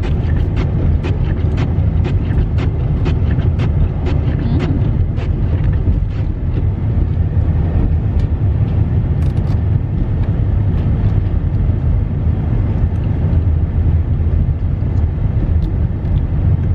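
Steady low rumble of a car's engine and tyres heard from inside the cabin while driving. Regular sharp ticking, about two clicks a second, fades out about five seconds in.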